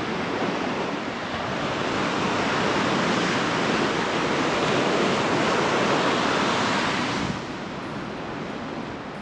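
Bow wave of a moving merchant ship rushing and breaking along the steel hull below the anchor: a steady hiss of churning water. It falls to a quieter wash about seven seconds in.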